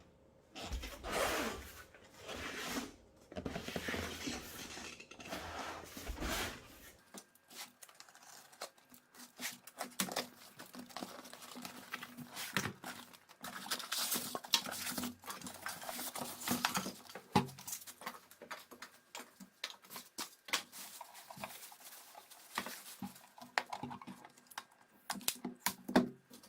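Unboxing handling sounds: packaging rustling, then many light clicks, knocks and clatter as parts are handled on a hard surface.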